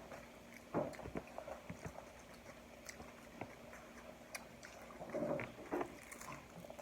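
Eating sounds at a meal table: chewing, with scattered light clicks and knocks of utensils and plates.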